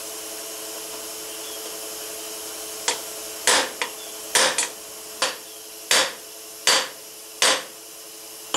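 Hammer blows on a bearing driver, seating a pinion bearing race into a Suzuki Samurai's differential third-member housing: about nine sharp strikes, starting about three seconds in, roughly one every half to three-quarters of a second.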